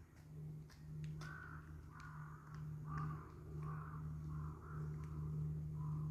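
A crow cawing repeatedly, about eight short harsh caws in quick succession starting about a second in, over a steady low hum.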